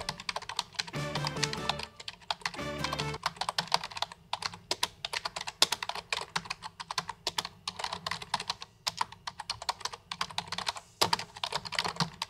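Typing on a computer keyboard: quick, irregular keystrokes clattering throughout. Background music plays under it for the first few seconds.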